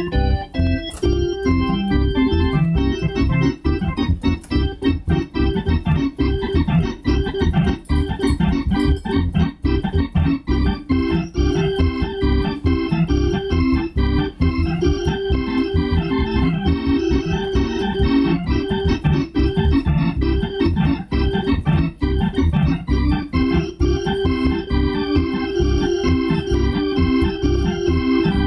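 Two-manual console organ being played continuously: a fast, pulsing low part under held chords.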